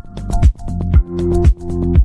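Electronic dance music with a steady beat of deep bass thumps about twice a second, under sustained synth chords.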